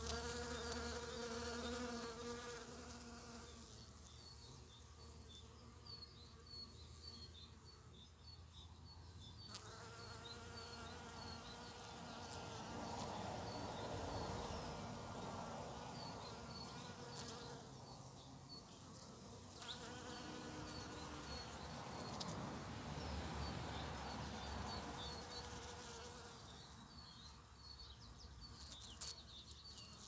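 Honeybees buzzing in flight around flowers. The hum swells and fades as bees pass close: at the start, around ten seconds in, and several more times later. Faint high chirps run underneath.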